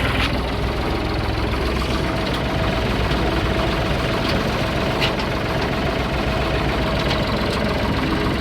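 Vehicle engine running steadily at low speed, with a few light clanks.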